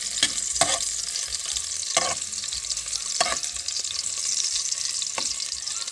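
Chopped garlic sizzling steadily in hot cooking oil, stirred with a large ladle that knocks and scrapes against the pan a handful of times.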